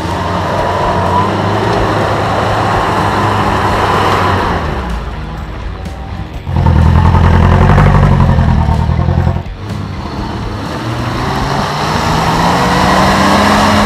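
Off-road 4x4 engines working through mud. A pickup's engine is loud as it passes close in the middle, then another engine rises steadily in pitch toward the end as it is revved.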